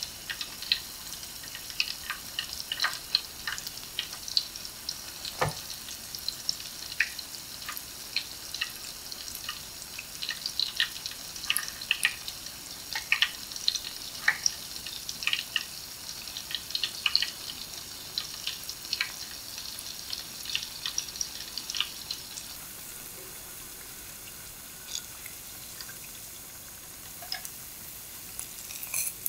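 Kimchi kakiage (vegetable and kimchi fritters) deep-frying in a pot of oil: a steady sizzle with frequent sharp crackling pops. About three quarters of the way through, the sizzle becomes quieter and the popping thins out.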